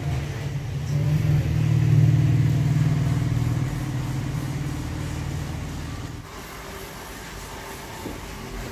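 A motor vehicle's engine humming low, growing louder to a peak about two seconds in, then fading and dying away about six seconds in.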